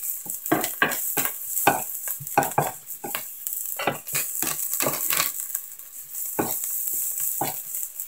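Sliced lemongrass and garlic sizzling in oil in a nonstick sauté pan, stirred with a silicone spatula that scrapes and knocks against the pan in short, irregular strokes a few times a second over a steady hiss.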